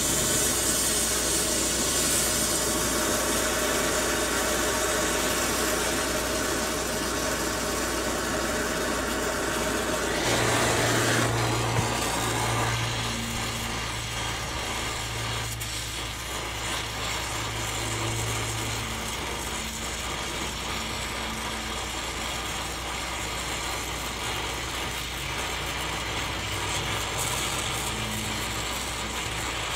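Stick (arc) welder burning an electrode on steel frame tubing: a steady hiss of the arc, loudest for the first ten seconds or so, then a little quieter, with a low hum for a while after that.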